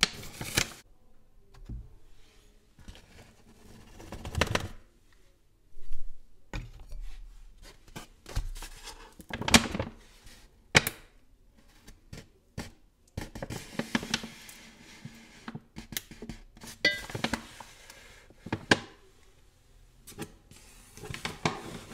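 Kraft paper pouch of herbal granules crinkling and rustling as it is handled and folded, with scattered sharp clicks and taps in between.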